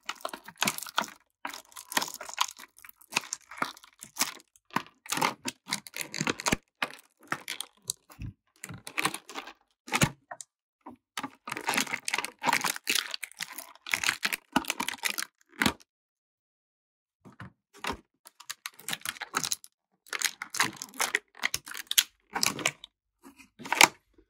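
Clear plastic packaging, a thin blister tray and plastic bags, crinkling and crackling in quick, irregular crackles as it is handled and pulled apart, with a short pause about two-thirds of the way through.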